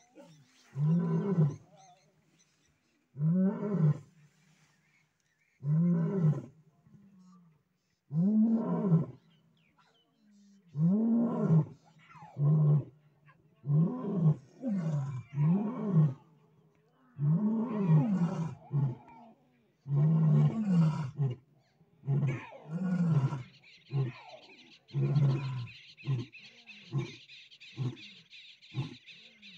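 Lions roaring in a bout: long rising-and-falling roars every two to three seconds, then shorter roars coming faster, dying away a little over 20 seconds in. A steady high hiss sets in near the end.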